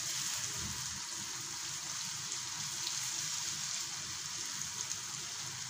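Chopped onion and grated carrot sizzling in oil in a frying pan, a steady hiss, as they are stirred with a spatula.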